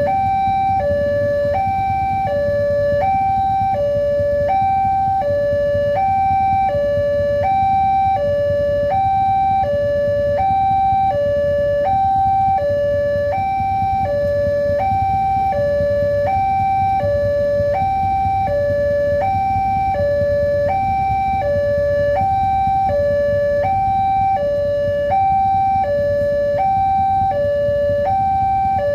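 Railroad level-crossing warning alarm sounding continuously: an electronic two-tone signal that alternates a lower and a higher tone about every two-thirds of a second. A low steady rumble runs underneath.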